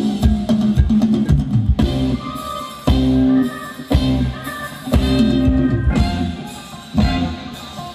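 A live band playing upbeat Thai ramwong dance music, with a drum kit keeping a steady beat under held instrumental notes.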